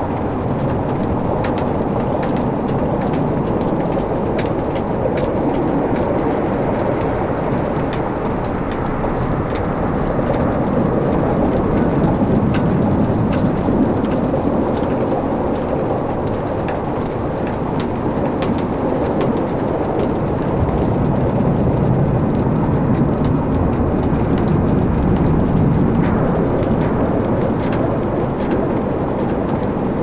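Logs burning in a fireplace: a steady, dense rushing noise of the flames with many scattered sharp crackles and pops from the wood.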